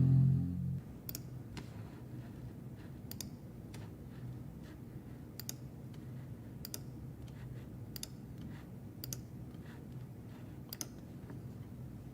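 Background music cuts off just under a second in. A low steady hum follows, with sharp clicks and taps every one to two seconds as the iMac and its accessories are handled.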